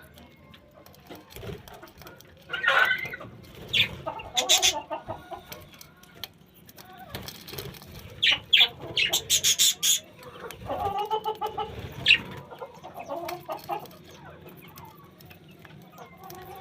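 Chickens clucking in short repeated calls, with bursts of sharp, high chirps from small birds mixed in.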